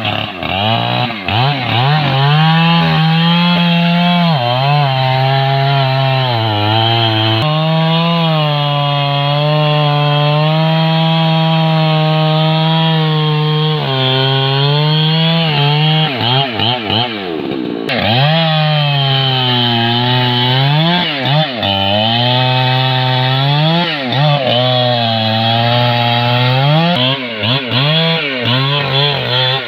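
Chainsaw running at high revs while cutting wood, its engine pitch repeatedly dipping and climbing back as the throttle is eased and opened again.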